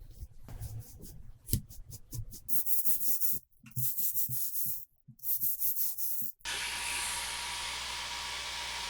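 Sped-up haircut sounds: a run of quick rubbing and snipping strokes with hissy bursts, then about six seconds in a steady electric whir starts and holds.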